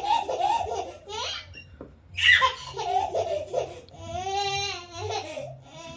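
Baby laughing in repeated bursts of giggles and squeals, with one longer wavering note about four seconds in.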